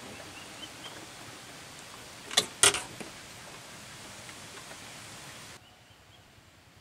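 Two sharp knocks a fraction of a second apart over a steady background hiss, which drops off abruptly near the end.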